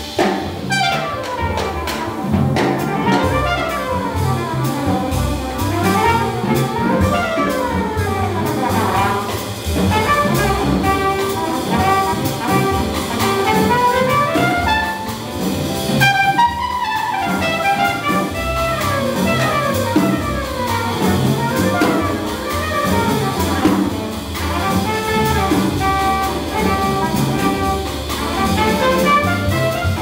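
Jazz trumpet solo, fast runs sweeping up and down in pitch, over an accompanying upright bass and drums.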